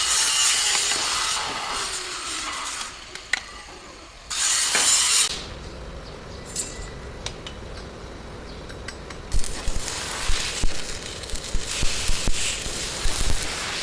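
Metalworking sounds: cutting or grinding noise at the start and once more briefly near the middle, then metal clinking and a run of short knocks.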